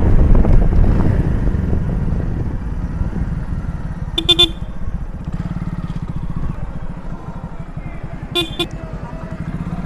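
A 100cc single-cylinder motorcycle engine running and growing quieter as the bike slows. Two brief double horn toots sound, about four seconds in and again near the end.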